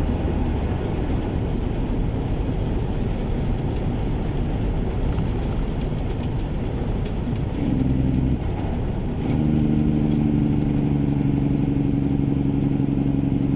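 Cummins N14 inline-six diesel of a semi truck running at road speed, a steady low rumble. A steady chord-like tone sounds briefly about eight seconds in, then again from about nine seconds on, louder than the engine.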